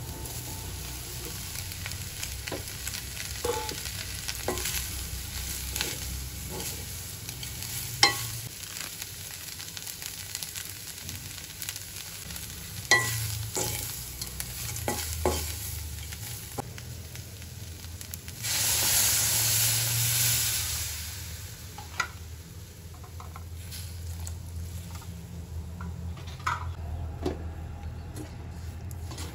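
Soy meat frying in an aluminium pot, stirred with a spoon that scrapes and now and then knocks sharply against the pot. About two-thirds of the way in there is a loud rush of sizzling for about two seconds as liquid goes into the hot pot, and the frying is quieter afterwards.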